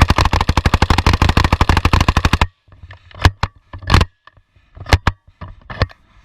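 A long full-auto burst from a 9mm M11-type submachine gun, a rapid string of shots lasting about two and a half seconds, followed by several separate single shots, some in quick pairs.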